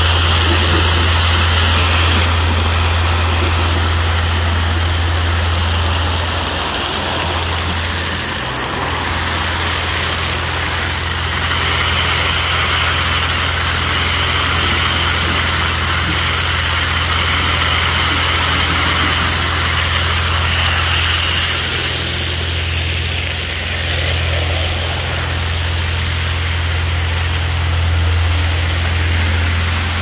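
Industrial gravel vacuum running with a steady low drone while its large suction hose pulls up roof gravel.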